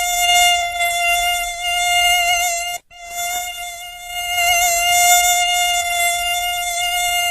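Mosquito wing whine: a steady, high-pitched drone with a slight waver. It cuts out abruptly for a split second about three seconds in, then comes back.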